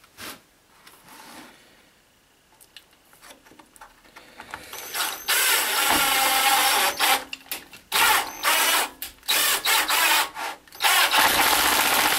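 Electric drill driving a screw into wood. The motor starts about four and a half seconds in and runs in bursts, stopping and restarting several times as the screw is sunk.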